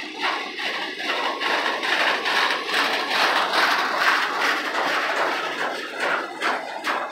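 Loaded bulkhead flatcars of a freight train rolling past on steel wheels: a steady rolling rumble and rattle that swells in the middle, with repeated wheel clicks more distinct near the end.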